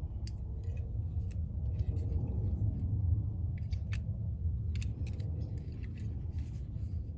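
Small metal clicks and taps from two Zippo lighter inserts, a butane torch insert and a regular fluid insert, being handled and held up side by side, over a steady low rumble.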